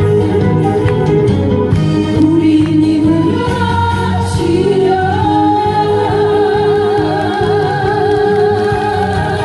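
Korean trot song medley performed live: a singing voice over a backing track, with a long wavering held note in the second half.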